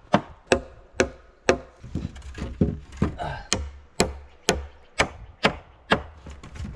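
A nail being hammered into a wooden pole, fixing the poles of a tree-fort platform. The blows are sharp and evenly spaced, about two a second.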